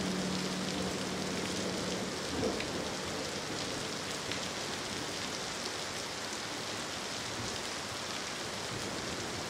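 Steady rain falling, an even hiss with scattered faint drops. The last held notes of a piece fade out in about the first second.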